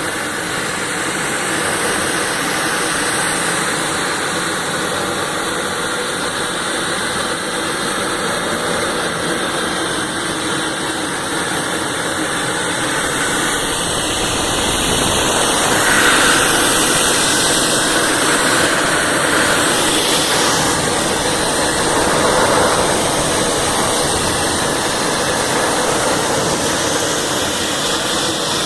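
Stainless-steel rotary drum dryer running: a loud, steady mechanical noise that swells a little about halfway through.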